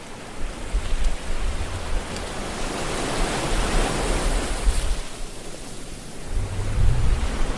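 Rushing noise of surging sea waves that swells to a peak about halfway, eases off, then carries a deep low rumble near the end.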